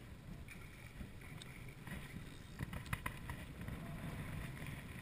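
Wind buffeting the microphone over water lapping against a small open boat's hull, with a few sharp clicks near the middle.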